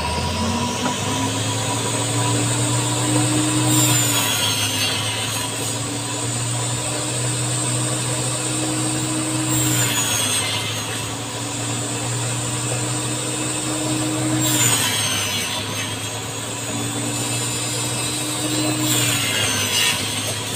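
Homemade table saw driven by an angle grinder, running steadily while it crosscuts small wooden pieces. Four cuts come about five seconds apart, each a burst of sawing noise over the motor hum.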